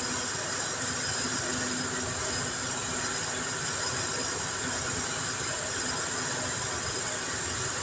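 A steady, even rushing hiss with no clicks or knocks.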